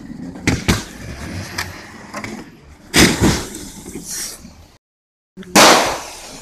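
Car engine revving, with a couple of sharp bangs about half a second in and loud noisy bursts around three seconds in and again near the end.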